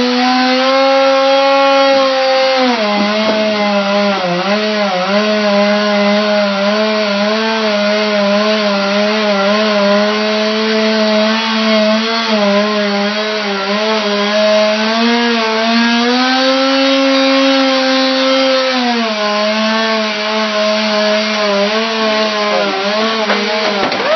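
Two-stroke chainsaw running at high throttle while cutting through a willow trunk. Its engine note drops a few seconds in as the chain loads up in the cut, climbs back for a couple of seconds about two-thirds of the way through, then sags again under load.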